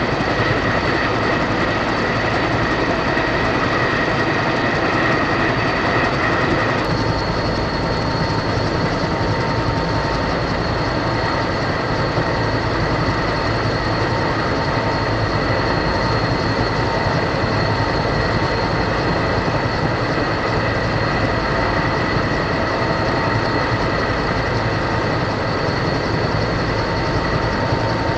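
Steady jet aircraft engine noise: a constant roar with a high turbine whine over it. The whine shifts abruptly about seven seconds in.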